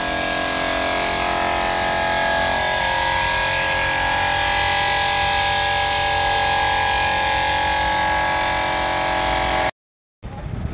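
Repaired 24-volt Leyland starter motor running free on a bench test, its switch held on the main contact, spinning with a steady whine and hum. The sound cuts off abruptly near the end.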